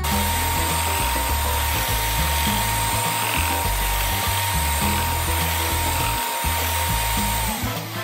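Electric hand mixer running at speed, its beaters whipping cream in a stainless steel bowl, with a steady high motor whine over a dense whirr. The whine slides down near the end as the motor winds down. Background music plays underneath.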